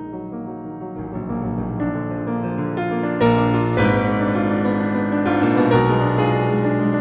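Background piano music, new notes and chords coming in every second or so and growing a little louder.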